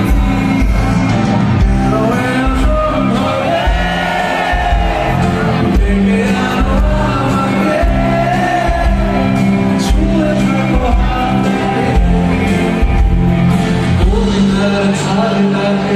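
A live band playing a Bengali pop-rock song with a singer over a steady beat, heard from amid the audience, with shouts and cheers from the crowd.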